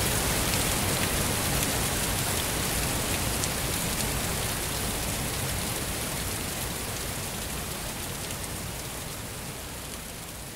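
Waterfall's steady rush of falling water, fading out slowly.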